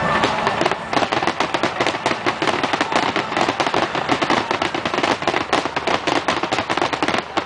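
Aerial fireworks bursting in a dense barrage: a rapid, continuous crackle of many small sharp bangs from glittering crackling-star shells.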